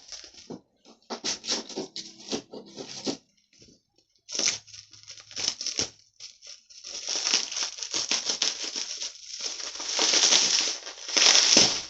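Packaging being handled and pulled open around a parcel: irregular rustling and tearing, in short bursts at first and busier and louder for the last few seconds.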